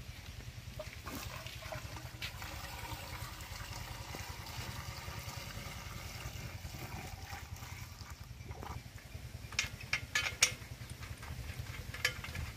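Water being poured into the pump of an 8 hp diesel pumping set, which is likely priming it, over the steady low pulsing of the diesel engine. A few sharp knocks come near the end, the loudest a little past the middle of the last third.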